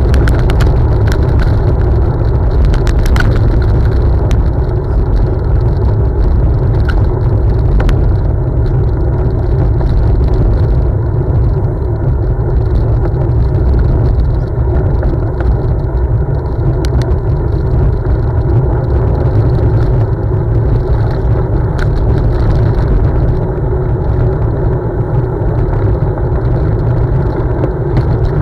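Focus Mares cyclocross bike being ridden along a gravel path: a loud, steady low rumble of tyres on the path and wind on the bike-mounted camera's microphone. A few sharp rattling clicks come in the first few seconds.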